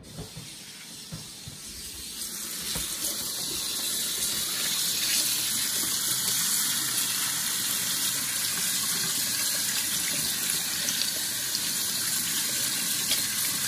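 Kitchen tap running into the sink while fresh thyme and rosemary sprigs are rinsed under it. The flow swells over the first few seconds, then runs steadily.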